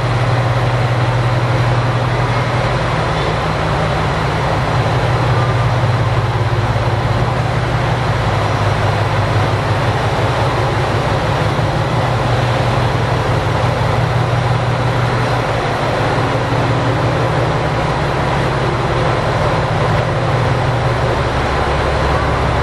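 KiHa 100 diesel railcar's engine idling while the railcar stands still: a steady low drone.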